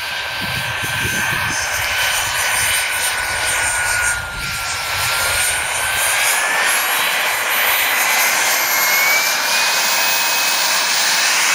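Wren 54 turbine of a Falcon 120 radio-controlled model jet whining in flight, its high-pitched whine dipping slightly and then climbing steadily in pitch for several seconds before levelling off, over the rush of the exhaust.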